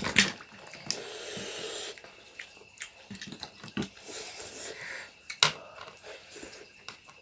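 Eating sounds from a meal of snail curry: a hissing slurp about a second in, then scattered small clicks and smacks, with a sharper click about five and a half seconds in.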